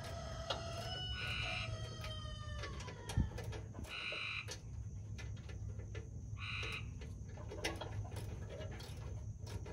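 A rooster crowing once, a long call that slides down in pitch near its end, then a short high beep repeating about every two and a half seconds, over a steady low hum.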